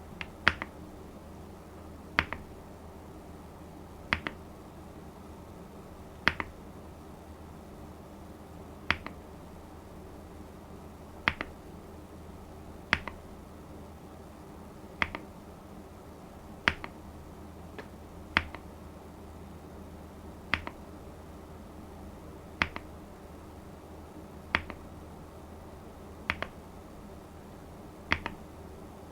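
Single key presses on a Skyloong GK68HE aluminium magnetic-switch keyboard, about one every two seconds, each a sharp click followed by a softer one.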